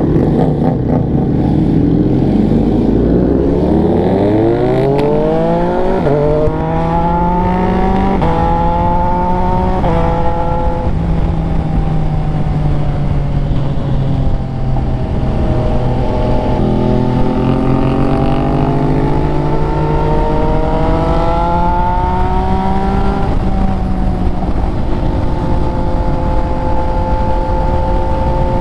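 MV Agusta F3 inline-three engine accelerating hard through the gears. Its pitch climbs and drops back at each upshift, holds at a steady cruise, climbs through a second pull and then settles to a steady cruise near the end. Heavy wind rumble throughout.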